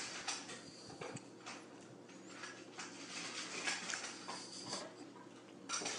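Faint scattered taps and scuffs from a cat's paws on a granite kitchen counter as it moves in an arched-back, startled pose, over a low steady room hum.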